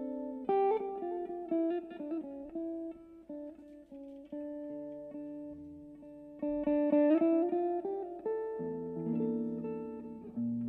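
Jazz guitar played on a hollow-body archtop electric guitar, mixing picked single-note melody lines with ringing chords. Lower notes join about halfway through.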